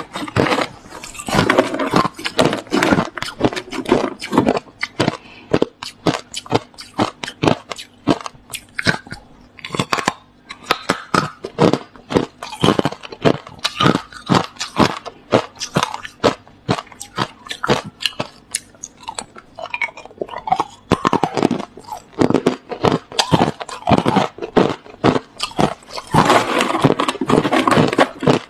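Hard crushed ice being bitten and chewed close to the microphone: continuous loud, irregular crunching and cracking, several crunches a second.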